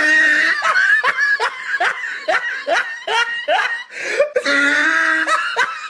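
A person laughing hard: a quick run of short rising bursts, about two to three a second, between drawn-out voiced notes at the start and again near the end.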